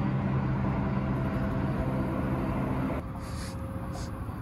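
A steady low engine hum, like a vehicle idling, which drops away suddenly about three seconds in, followed by two brief soft hisses.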